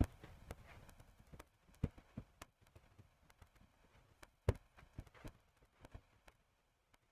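Quiet room tone broken by a few faint, scattered clicks and taps, the loudest about halfway through.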